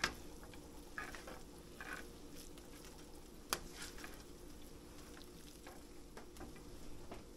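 A slotted spoon stirring and tossing spaghetti in a copper-coloured frying pan, with soft scraping and a light sizzle. The spoon knocks sharply against the pan right at the start and again about halfway through.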